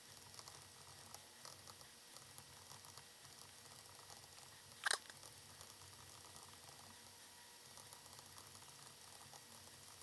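Faint ticking and scratching of a stylus writing on a tablet screen, with one brief louder noise about five seconds in.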